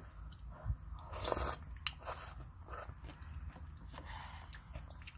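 Close-up eating sounds of instant cup ramen: chewing noodles and sipping spicy broth from a plastic spoon, with a louder noisy slurp about a second in and scattered light clicks of the spoon against the cup.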